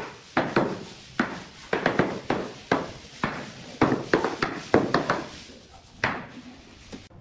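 Hammer knocking at the end of a bamboo tongue-and-groove floor plank against the wall, driving the joint closed: a run of sharp knocks, about two a second, with a last one about six seconds in.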